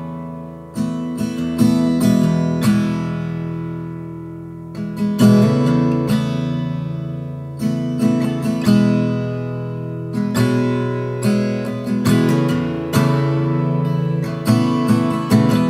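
Background music: an acoustic guitar track with plucked and strummed chords.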